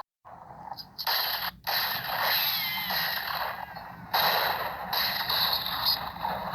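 Cartoon-style cowboy gun-battle sound effects: harsh noisy bursts of gunfire broken by sudden cuts, with thin falling whines like ricochets about two to three seconds in.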